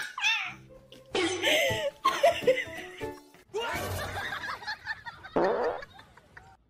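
Laughter over background music, with a short raspy burst about five and a half seconds in.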